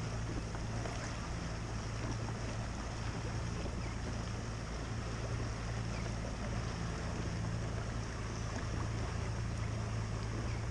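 Steady low motor hum on the water, a constant drone with a light wash of water and wind noise over it.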